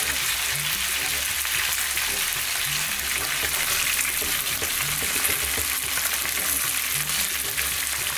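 Pieces of lionfish frying in hot oil in a nonstick frying pan: a steady, dense sizzle, with a spatula now and then stirring the pieces as they are fried until crispy.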